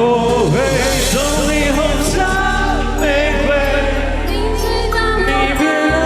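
A singer's voice carrying a song over backing music, the melody gliding and wavering with vibrato.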